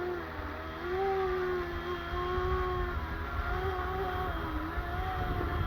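Small RC helicopter in flight, its electric tail-rotor motor whining. The whine is described as screaming, and its pitch wobbles up and down every second or so. A low rumble of wind runs underneath.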